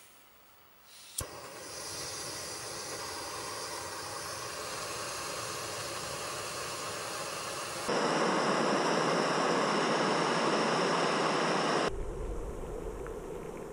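A backpacking gas canister stove lit with a single sharp click, after which its burner hisses steadily. About eight seconds in the sound jumps to a much louder rush as a pot of water boils hard on the burner, then drops back near the end.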